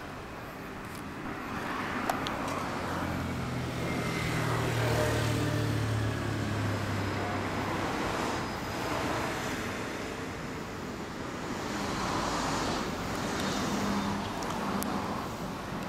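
Road traffic going by, several vehicles passing one after another so the sound swells and fades a few times; a low engine hum is heard in the first half.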